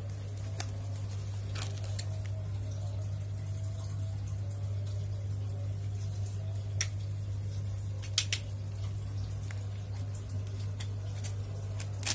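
A steady low hum with a few scattered sharp clicks and taps; the loudest is a quick double click about eight seconds in.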